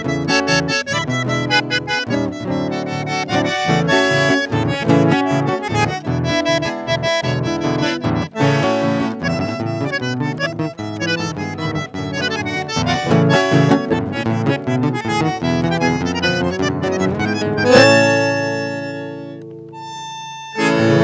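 Bandoneon playing a busy melodic line over two acoustic guitars. About 18 seconds in, the trio lands on a held chord that fades away, and the bandoneon comes back in just before the end.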